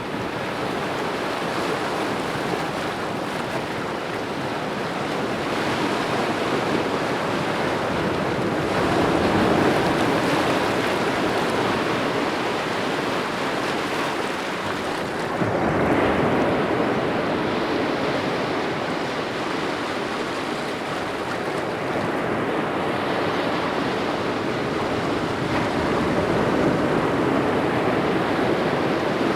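Ocean waves washing onto a shore in a continuous wash of surf, swelling and easing as each wave breaks, loudest about 10 s, 16 s and 27 s in.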